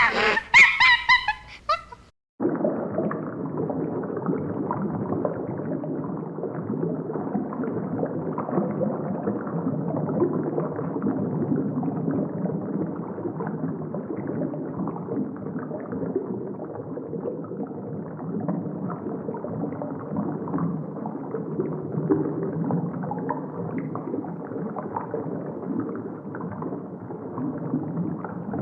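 A brief loud animal call, then after a sudden cut a steady, muffled underwater wash with gurgling water.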